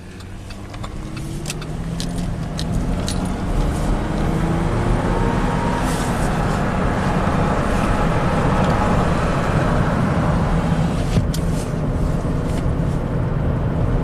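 The 3.6-litre direct-injection V6 of a 2009 Chevy Traverse, heard from inside the cabin as the SUV pulls away. The engine note rises over the first few seconds as it accelerates, then settles into a steady drive with road noise. It runs smoothly, without the clattering of the cam phasers, now that the oil, found 3.5 quarts low, has been topped up.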